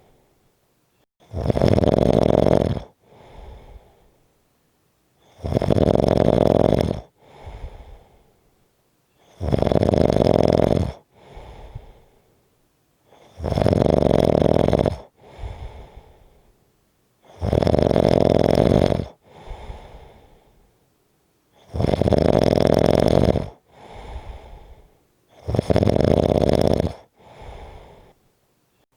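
A person snoring strongly and regularly: seven long, loud snores about four seconds apart, each followed by a softer, shorter breath sound.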